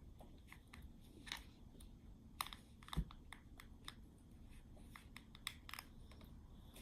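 A spoon digging and scraping through Play-Doh: faint, irregular small scrapes and clicks, with a sharper knock about three seconds in.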